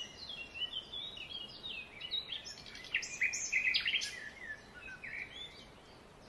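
Barn swallows twittering: a run of quick, high chirps and chattering notes that thins out and fades over the last second or so.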